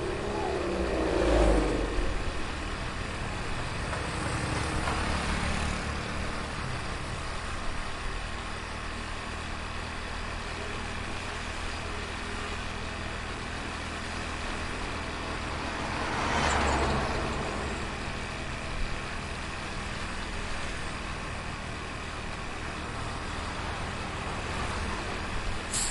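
Heavy street traffic heard from a moving taxi: a steady rumble of engines and road noise, with a vehicle passing close about a second and a half in and again about sixteen seconds in.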